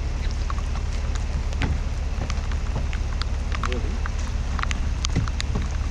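Rain falling on wet pavement, an even hiss with many scattered drops ticking, over a steady low rumble.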